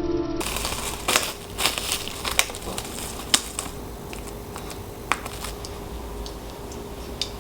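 Scattered sharp clicks and taps over faint crinkling, as food is prepared and handled in a kitchen, with a faint steady hum underneath. Background music cuts off in the first half second.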